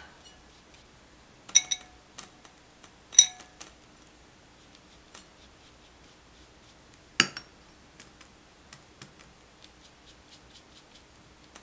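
Paintbrush clinking against a ceramic palette plate while picking up paint: two short ringing clinks in the first few seconds and a sharper single tap about seven seconds in, with faint ticks between.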